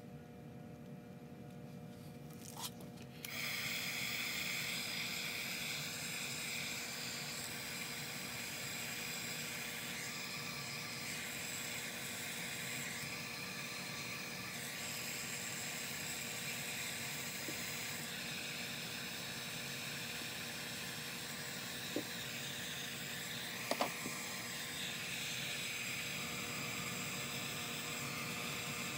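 Handheld craft heat tool switched on about three seconds in and running steadily, a fan hiss with a high whine, blowing hot air to dry wet paint on a journal page. A couple of light clicks come late on.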